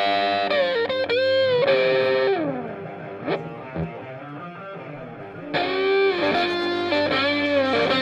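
Background instrumental music led by an electric guitar with effects, its notes bending and sliding; it dips about two and a half seconds in and swells again near the middle.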